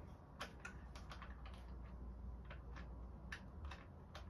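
Faint, irregular small clicks and taps as an offset side sight is fitted onto the rail of an airsoft AR rifle.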